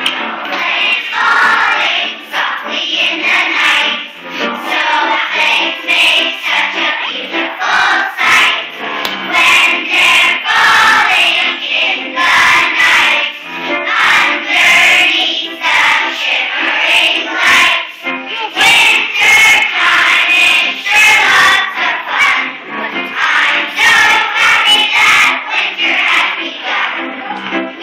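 A large group of young children singing together as a school choir.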